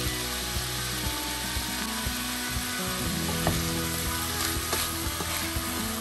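Onion, celery and carrot sizzling in olive oil in a stainless steel pot, with a steady hiss. A wooden spatula stirs the vegetables and knocks against the pot a few times in the second half.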